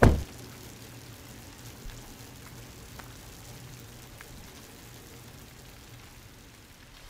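A single loud thump right at the start, then steady rain falling, with a few faint drips and a low hum underneath.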